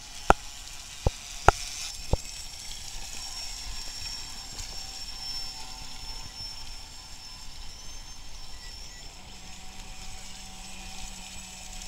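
Radio-controlled model motorboat running on the water, its motor giving a steady high-pitched whine. A few sharp clicks come in the first two seconds, and a low hum joins near the end.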